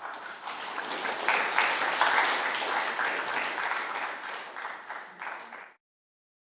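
Church congregation applauding. The clapping builds over the first second or so, holds, and cuts off suddenly near the end.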